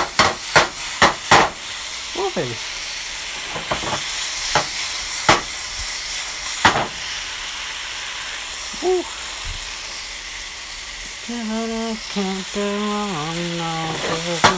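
Strips of sliced steak sizzling steadily in oil in a nonstick frying pan. In the first second and a half the pan is tossed, making about five sharp knocks, and a few single knocks follow over the next several seconds.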